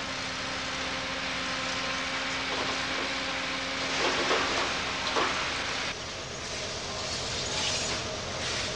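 Excavator engine running with a steady hum while broken concrete and rubble crash down, loudest about four and five seconds in. After a cut near six seconds the hum stops and scattered clattering of debris follows.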